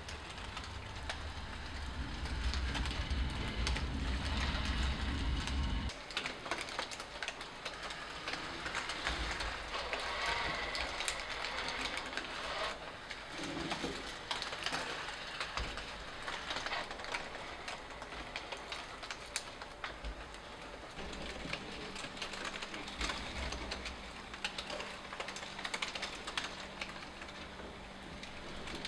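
Small paper-covered legged robot moving, its motors and leg mechanism giving a dense, irregular run of mechanical clicks and ticks.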